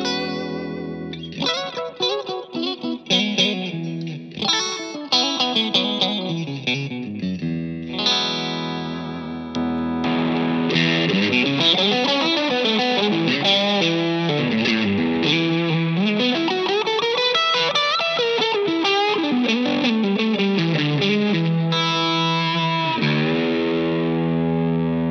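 Fender Stratocaster electric guitar played through a Two-Rock amp, close-miked at the center of the speaker cone. For about ten seconds it plays picked phrases of notes and chords, then long sustained lead notes bent up and down, and ends on a held chord.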